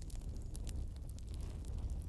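Light, scattered clicks of bamboo barbecue sticks tapping together as they are laid onto a stacked stick frame, over a steady low rumble.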